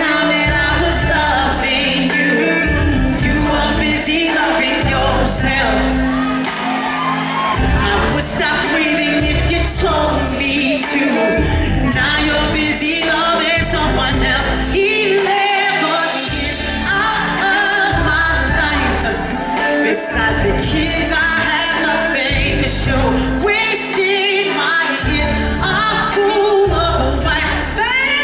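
Live R&B performance: a woman's lead vocal sung into a handheld microphone over a band with bass guitar and keyboards, heard from the audience in a large hall.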